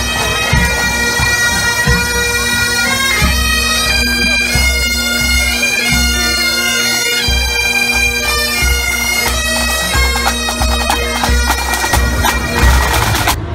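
Pipe band playing as it marches: Highland bagpipes playing a tune over their steady drone, with marching drums beating underneath. The music cuts off suddenly at the very end.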